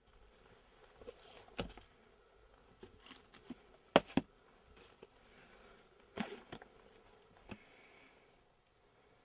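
Faint background hiss with a handful of sharp clicks and knocks. The loudest is a pair about four seconds in, with others near two, six and seven and a half seconds.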